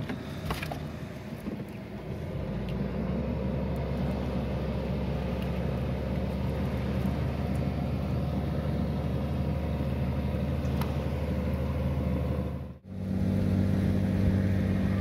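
A boat engine running steadily, settling into its run about two seconds in after a few knocks. It cuts out abruptly for a moment near the end and comes back louder.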